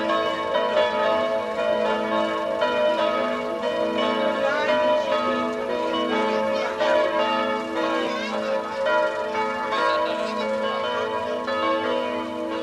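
Church bells ringing, several bells struck over and over so that their tones overlap in a continuous peal.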